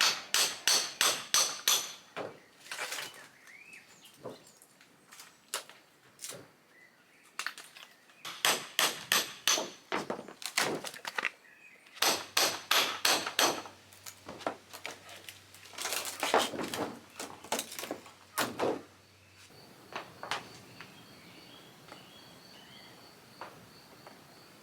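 Several runs of rapid hammer taps, about five or six a second, separated by pauses and a few single knocks. Near the end, faint bird chirps over quiet outdoor background.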